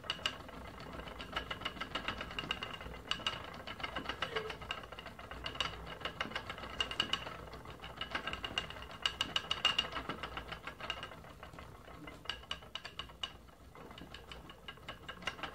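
Wooden flyer spinning wheel being treadled: a fast, rattling clicking from the turning wheel and flyer that comes in runs and eases off briefly twice near the end.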